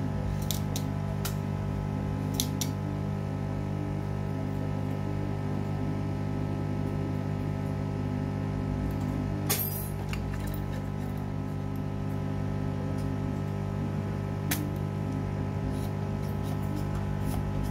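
A steady hum runs throughout, with a few sharp clicks from tools worked on a power-supply circuit board during desoldering; the loudest click comes about nine and a half seconds in.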